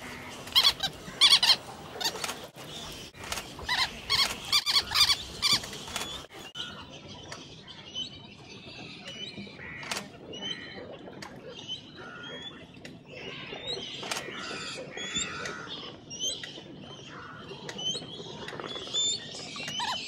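River terns calling: a quick, loud series of repeated calls for about the first six seconds, then only fainter short chirps scattered through the rest.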